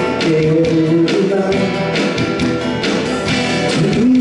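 A man singing a Korean pop song live into a microphone, accompanied by a strummed acoustic guitar, with a steady beat.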